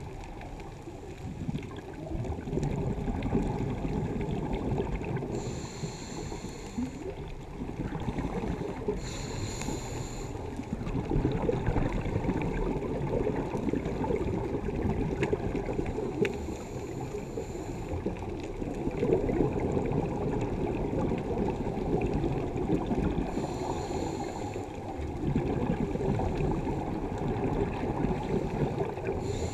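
Scuba breathing heard underwater. The regulator hisses briefly on each inhale, five times, and between them long surges of exhaled bubbles rush and gurgle.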